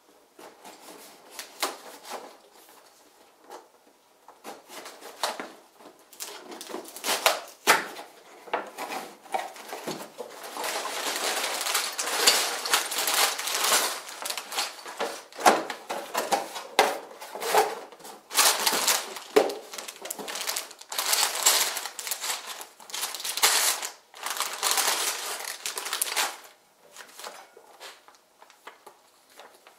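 Cardboard box being opened, then sealed plastic bags of plastic toy bricks crinkling and clattering as they are tipped out and handled. The crinkling and clicking is loudest through the middle stretch and dies down near the end.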